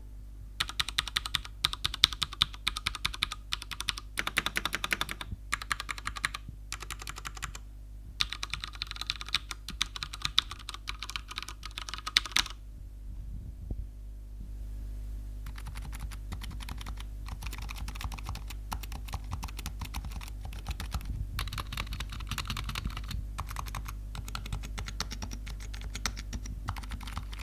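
Typing sound test on two mechanical keyboards in turn, a Ducky One 2 Tuxedo TKL and a Razer Huntsman Mini: rapid key clicks with sharp, loud strokes for about twelve seconds. After a short pause, the second keyboard clatters more evenly and more quietly, over a low steady hum.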